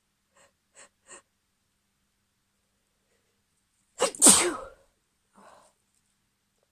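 A woman sneezes once, loudly, about four seconds in, with a quick catch of breath just before the burst. Three short, faint breaths come in the first second, and a soft breath follows about a second after the sneeze.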